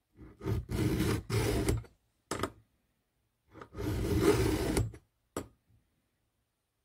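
A 3/16-inch round file in a file guide rasping across a chainsaw chain cutter, sharpening it: two strokes in the first two seconds, a short scrape, then one longer stroke in the middle, with pauses between.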